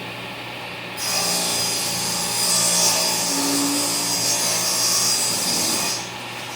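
Table saw running, its blade cutting through a piece of 1/2-inch plywood for about five seconds, starting about a second in, then spinning free again.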